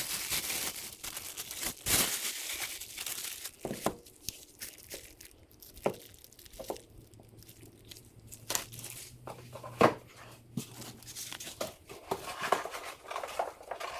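Crinkling and rustling of packaging while pistons and wrist pins are handled at the bench, with several light knocks of parts being set down.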